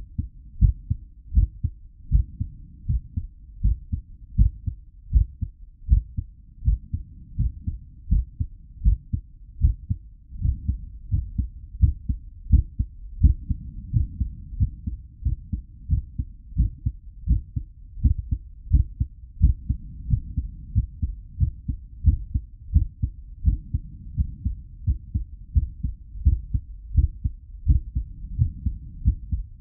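Human heartbeat at a medium rate: a steady, even rhythm of low, dull thumps.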